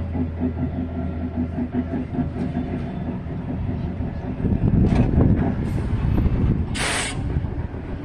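Vintage electric tram running along its track and drawing to a stop, its wheels and motor rumbling louder as it comes close about five seconds in. A short hiss comes near the end.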